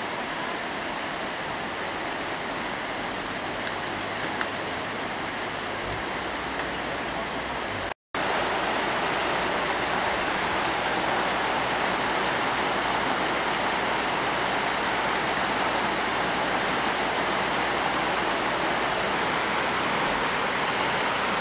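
A rocky mountain stream rushing steadily over boulders. The sound breaks off for a moment about eight seconds in and returns louder and closer.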